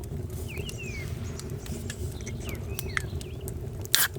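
Wood fire crackling with scattered sharp pops over a steady low rumble, while small birds chirp several short calls. A brief louder burst comes near the end.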